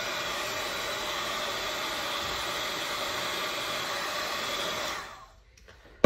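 Craft heat gun blowing steadily over a wet resin pour, then switched off about five seconds in, its fan winding down.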